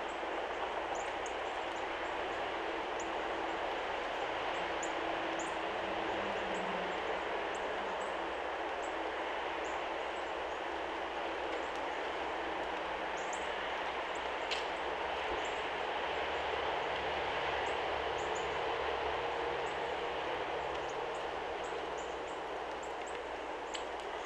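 Steady, even rushing background noise, with faint short high chirps scattered throughout and a single sharp tap about halfway.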